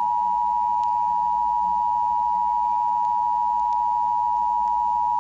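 Emergency Alert System attention signal: its two tones sounding together, loud, steady and unbroken, announcing that an emergency alert message follows.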